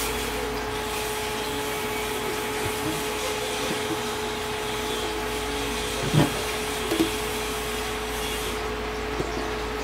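Clear plastic protector cases holding Funko Pop boxes being handled, giving a few soft knocks and taps, the loudest about six seconds in, over a steady whooshing noise with a faint hum.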